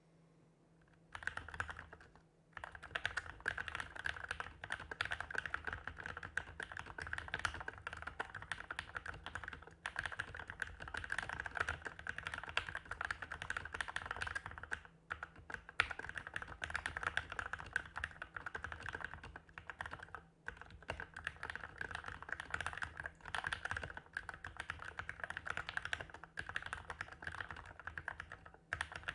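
Fast continuous typing on a Keychron K8 mechanical keyboard with Tealios V2 linear switches lubed with Krytox 205g0 and fitted with TX films: a dense run of keystroke clacks with a few brief pauses, starting about a second in.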